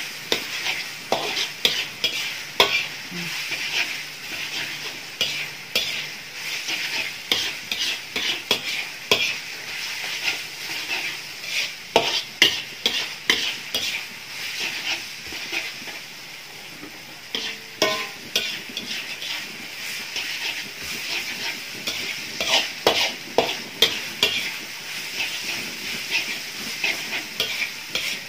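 Instant noodles sizzling in oil in a wok as they are stir-fried until dry, the spatula scraping and clacking against the pan about once or twice a second, with a short lull in the stirring about sixteen seconds in.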